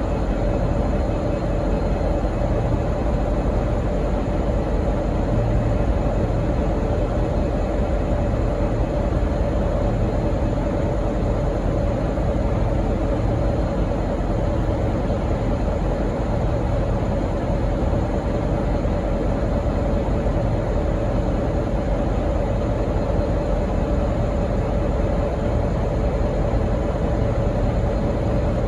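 V/Line N-class diesel locomotive running steadily: a constant low rumble with a steady whine. No horn is sounding.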